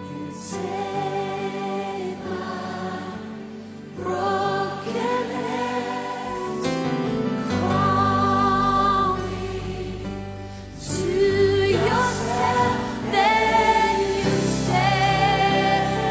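A choir singing a hymn in long held notes.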